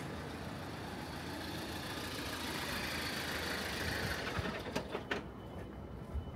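A vehicle passing on a city street: its noise swells to a peak about three seconds in and fades away, with a couple of sharp clicks near the end.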